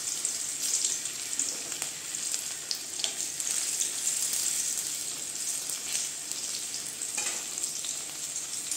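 Boiled potato chunks frying in hot mustard oil in a metal kadai: a steady sizzle with scattered small crackles.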